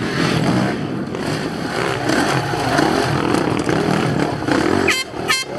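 Enduro motorcycle engines running and revving in the background, with two brief crackles near the end.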